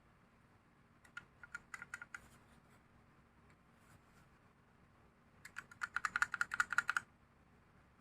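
Typing on a Lily58 Pro split mechanical keyboard with Outemu Black linear switches in a 3D-printed case. A short run of keystrokes comes about a second in, then a faster, louder burst of rapid keystrokes lasts about a second and a half near the end.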